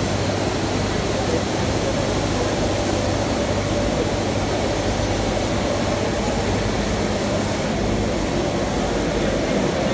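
Flexographic printing press for HDPE/PP woven sacks running steadily: its rollers turn with a constant whirring hum that holds the same level throughout.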